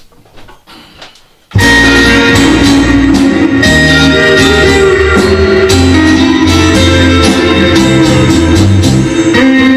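A guitar-led band record, in the vintage rock and roll and R&B style of the set, starts abruptly about a second and a half in and plays loud with a steady drum beat and bass line.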